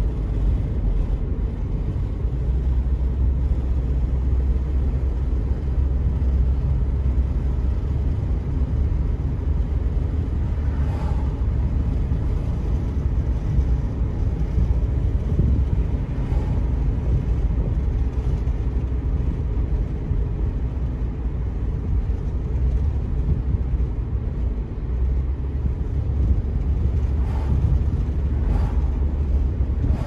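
Steady low rumble of a car driving, engine and road noise without a break, with a few faint short knocks.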